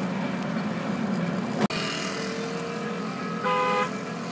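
Steady engine and road noise inside a taxi's cabin moving through motorbike traffic, with a click and brief dropout about a second and a half in. A horn sounds once, briefly, near the end.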